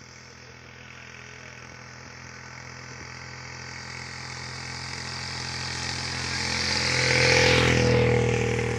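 Engine of a motor vehicle growing steadily louder as it approaches, loudest about seven seconds in, then fading slightly as it passes.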